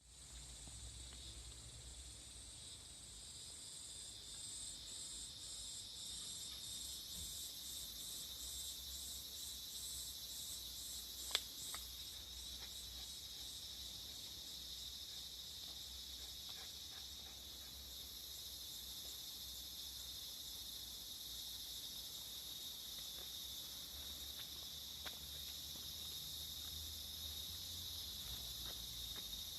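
Steady high-pitched chorus of insects outdoors, with a pulsing call repeating about twice a second that fades out about ten seconds in, and a single sharp click near the middle.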